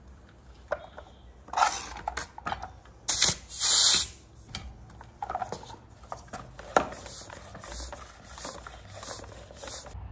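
Air hissing at a bicycle tyre's valve as a hose pump head is fitted and the tyre is pumped up. The loudest hisses come between about one and a half and four seconds in, followed by a run of shorter hisses and a few sharp clicks.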